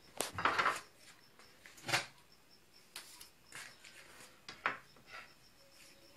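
Kitchen dishes and utensils being handled around a pot on the stove: a few brief clatters and scrapes, the longest just after the start and another about two seconds in, with fainter knocks after.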